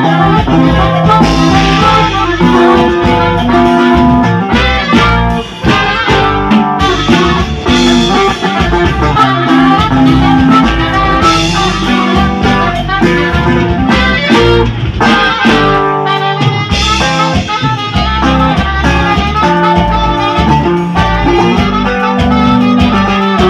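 Loud cumbia dance music.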